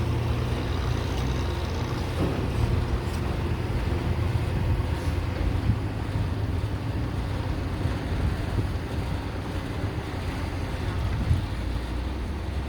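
Caterpillar 320 GC excavator's diesel engine running steadily, with a few brief knocks and wind on the microphone.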